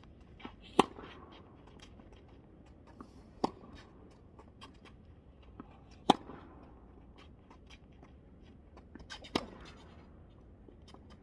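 Tennis balls struck by racquets in a baseline rally: a sharp pop about every three seconds, hits alternately louder and fainter as the two players trade shots, with lighter ball bounces just before some strokes.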